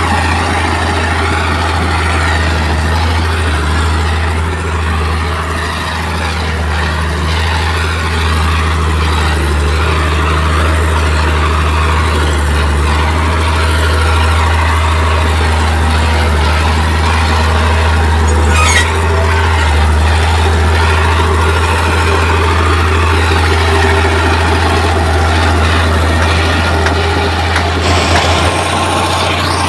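Diesel engine of heavy earthmoving machinery running steadily at a low pitch, with a single sharp click about two-thirds of the way through.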